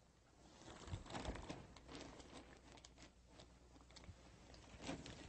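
Faint rustling and crinkling of plastic sheeting as a Velcro-strip door seal is pressed shut along a wooden door frame, with scattered small crackles and taps.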